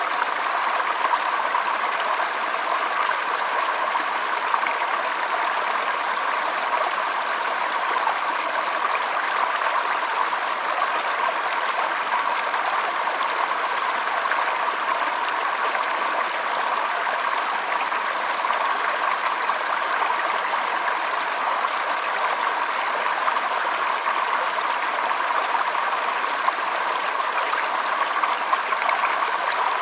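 Running water, flowing steadily and evenly without pause.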